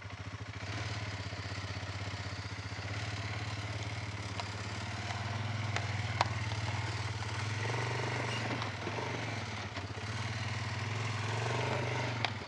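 Polaris ATV engine running steadily at low revs in low-range all-wheel drive as it crawls over rocks, with gentle swells of throttle and a few sharp knocks.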